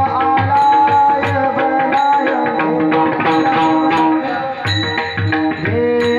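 Indian music: drum strokes and small cymbal clashes on a steady beat under a held, gliding melody line.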